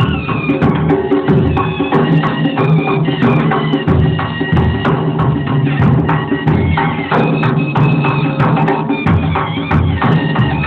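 Nagara drums beaten in a fast, steady rhythm, with a high, wavering melody line held over the drumming.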